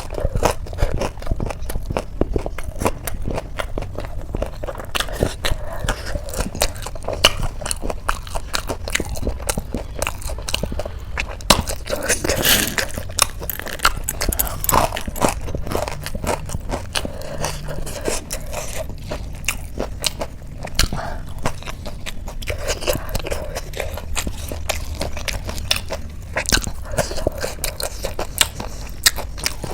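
Close-miked chewing and biting of crunchy Indian street-food snacks: a dense, irregular run of small crunches and crackles.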